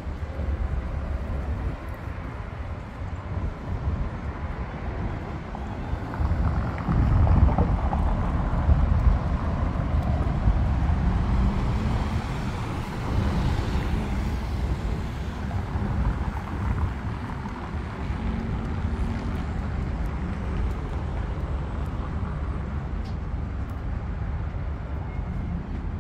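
Road traffic: a steady hum of passing cars, with one louder vehicle swelling past between about six and fourteen seconds in.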